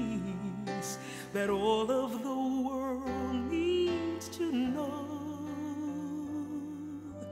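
Slow worship song playing: a melody of long, wavering held notes over sustained accompaniment.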